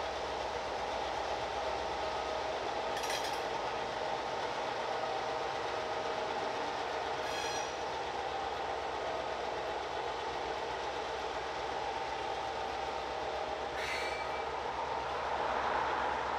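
Freight train with gondola rail cars rolling on the track, a steady rumble with three brief sharp metallic sounds spread through it, growing louder near the end.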